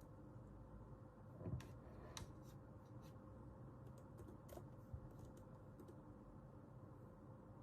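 A handful of irregular keystrokes on a computer keyboard over a faint steady room hum.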